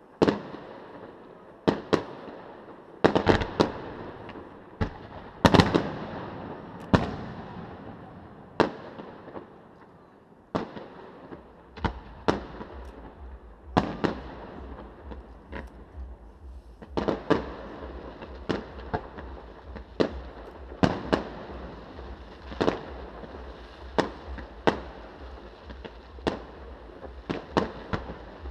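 Distant aerial fireworks display: aerial shells bursting one after another as sharp bangs, each with an echoing tail. The bangs come roughly once a second, ease off about a third of the way in, then come faster again toward the end.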